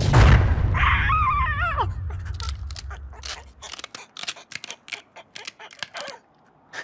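Cartoon sound effects: a heavy boom right at the start that rumbles away over a few seconds, with the red cartoon bird's wavering squawk about a second in. A quick patter of clicks and taps follows.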